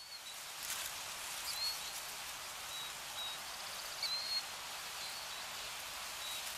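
Outdoor nature ambience: a steady hiss with a few short, high bird chirps scattered through it. It fades in from silence at the start.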